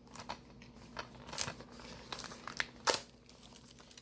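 Plastic DVD packaging crinkling and clicking as it is handled, with a sharper click just before three seconds in.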